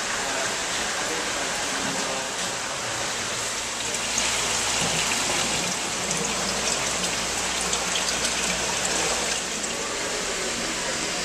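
Steady rush of running, splashing aquarium water, a little louder for about five seconds in the middle.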